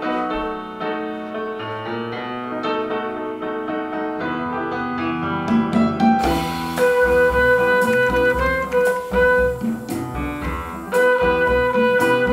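Instrumental band music played back through a JBL 4305P active studio monitor: held keyboard-like notes at first, then deep bass and drum hits come in about six seconds in.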